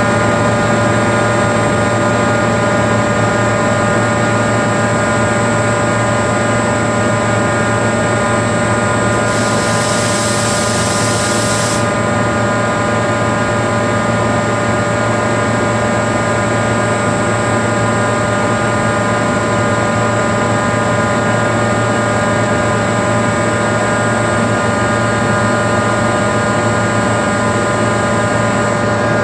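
Airking rotary screw air compressor running steadily with a constant hum and whine. About nine seconds in, a hiss comes in and cuts off abruptly some two and a half seconds later.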